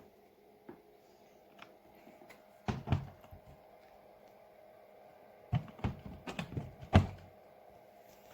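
Handling knocks and thuds on a small mini fridge, such as its door being opened and shut: a couple of thuds about three seconds in, then a quick run of knocks with the loudest near the end. A faint steady hum sits underneath.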